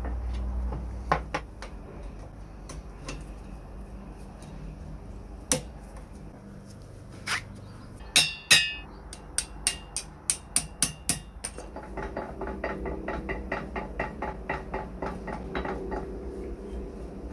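A small hammer taps on the metal hub of an old washing mangle's cast-iron handwheel: a quick run of about a dozen sharp taps, about four a second. Then the handwheel is turned by hand, and its cast-iron gears click in a steady rapid rhythm of about five a second.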